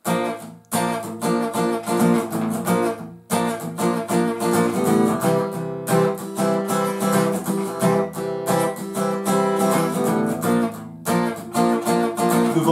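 Cutaway acoustic guitar strummed in a steady rhythmic chord pattern, with short breaks about a second in, around three seconds in and near eleven seconds.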